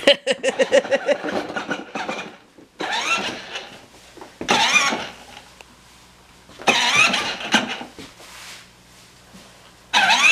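A man's quick burst of laughter, then several short voice sounds, over the faint steady hum of a battery-powered toddler ride-on's small electric motor.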